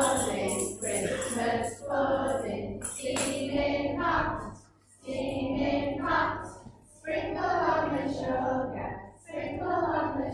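A group of young children singing together, in phrases broken by short pauses for breath.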